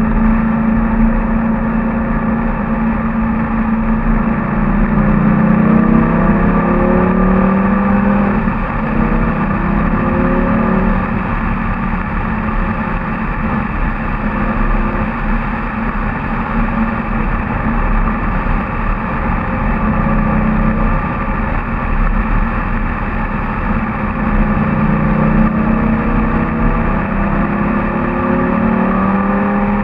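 Lamborghini Gallardo LP 570-4 Superleggera's V10 engine driving on the road. The note rises twice under acceleration, about five seconds in and again near the end, with a steadier cruise between.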